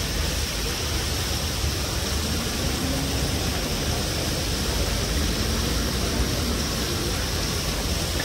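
Fountain water splashing into a basin: a steady, even rushing noise with no breaks.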